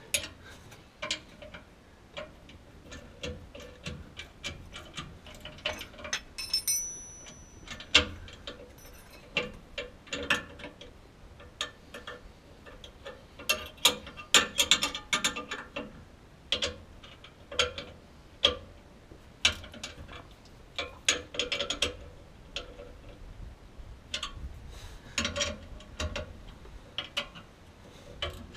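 Ratchet wrench clicking in short bursts with pauses as bolts on a Torklift StableLoads bracket are snugged down against a truck's leaf spring, a second wrench holding the other end.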